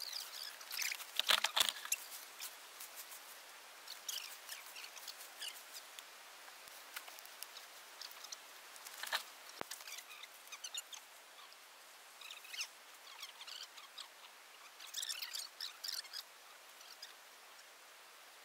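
Intermittent rustling and crackling of dry leaf litter and twigs as people step and shift about on the forest floor. Short clusters of crisp crackles come and go, the loudest about a second in and again near the end.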